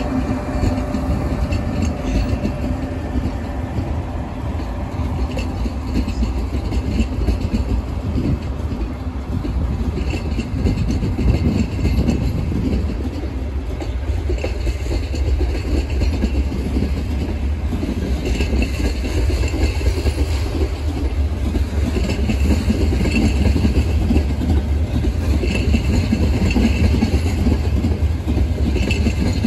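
A train running on the rails: a steady, dense rumble that grows a little louder in the last third.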